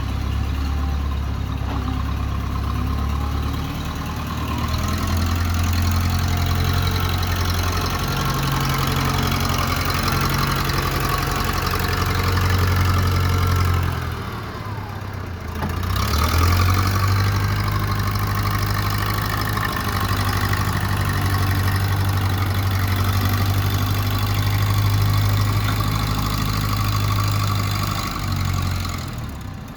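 A 1969 backhoe loader's engine running steadily as it works a gravel pile. About fifteen seconds in, the engine note falls away briefly, then comes back up.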